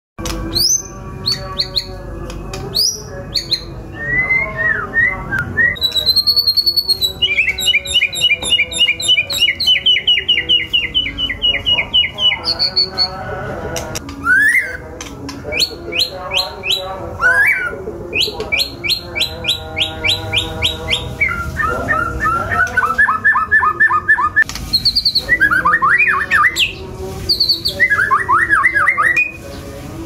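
White-rumped shama (murai batu) singing a long, varied song: fast runs of repeated short whistled notes, rising sweeps and trills, phrase after phrase with only short gaps between.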